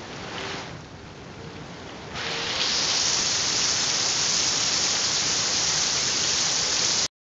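Heavy rain pouring onto a flooded concrete yard, a steady hiss of drops splashing into standing water. About two seconds in the hiss suddenly turns much louder and brighter, then cuts off abruptly just before the end.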